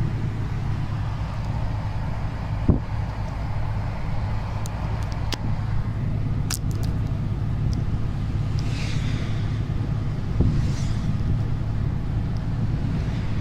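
Truck's diesel engine running steadily under way, with road noise. There is a thump about three seconds in and another near ten seconds, and a few light clicks.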